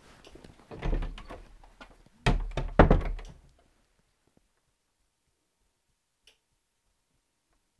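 People getting up from a table and leaving: shuffling and scraping, then a cluster of heavy thuds about two seconds in. After that, near silence with one faint click near the end.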